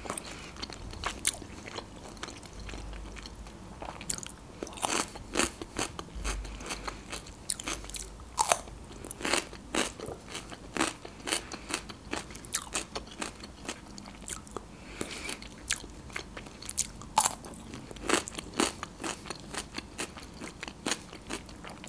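Close-miked chewing and biting: dolma (stuffed grape leaves) with kefir being eaten, with many short wet smacks and clicks through the whole stretch.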